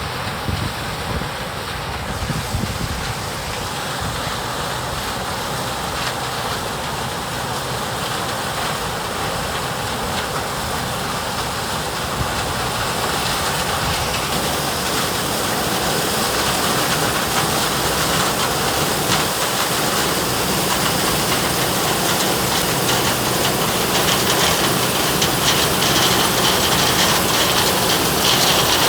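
Farm machinery running steadily, growing gradually louder, with a rushing noise over a low engine hum.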